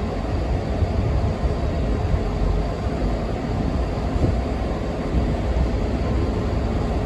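Diesel engine of a Class 43 HST power car running, a steady low rumble with a faint steady tone above it.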